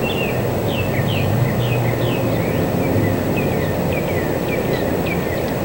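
A bird repeatedly calls short downward-sliding whistled notes, about two a second, over a steady low outdoor rumble.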